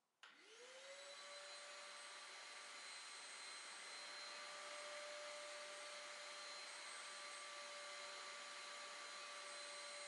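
Ozito wet and dry vacuum switched on: the motor whine rises as it spins up in the first second. It then runs steadily with a rush of air while the floor nozzle picks up spilled water and sawdust.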